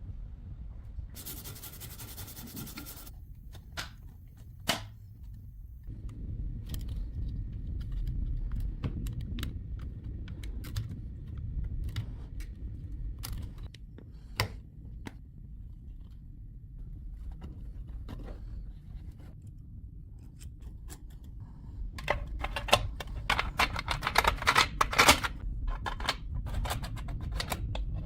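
Small metal parts being handled and worked: scattered sharp clicks and taps, a hiss of about two seconds near the start, and a dense run of quick scraping, rattling strokes near the end.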